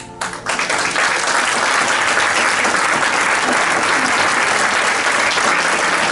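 Audience applauding, breaking out suddenly a fraction of a second in and continuing steadily.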